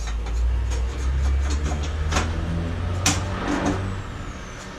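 Gas burners of a Weil-McLain CGM3 boiler burning after being relit, with a low rumble that swells and then fades out near the end. A few sharp clicks sound over it.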